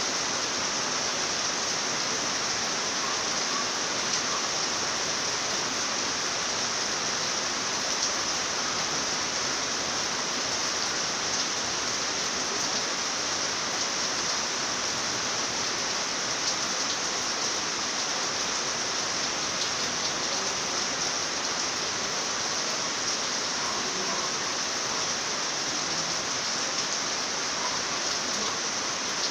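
Rain falling steadily at night, an even hiss that neither builds nor lets up.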